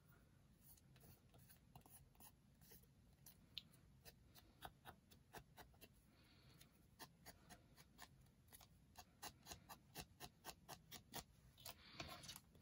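Faint, light tapping of a round ink pad dabbed along the edges of a card frame, irregular at first and then a few taps a second, quickening in the second half.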